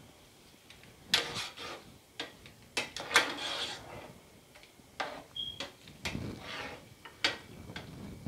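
Long metal spoon stirring and scraping minced meat in a large metal cooking pot, with a series of sharp clinks and knocks as the spoon strikes the pot's side and rim. The meat is being stirred so that its water cooks off.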